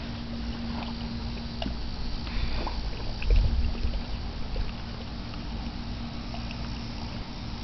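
Water sloshing and lapping softly as a husky shifts its legs in a shallow plastic kiddie pool, over a low rumble that swells about three seconds in.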